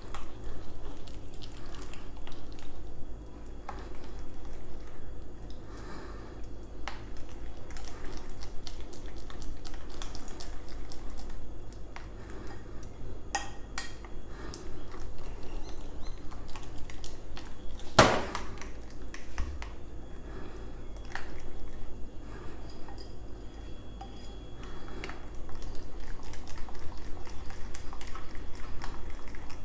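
A utensil beating a flour, egg and water batter in a bowl, with repeated light clinks and scrapes against the bowl and one louder knock about two-thirds of the way through.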